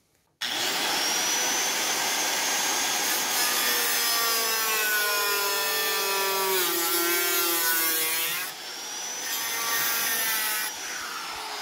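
Makita circular saw with a thin 1 mm abrasive cutting disc starting up suddenly and cutting through the van's sheet-metal roof. It makes a loud grinding whine whose pitch sags under load partway through, with a short break about eight and a half seconds in. Near the end it eases off and the motor begins to wind down.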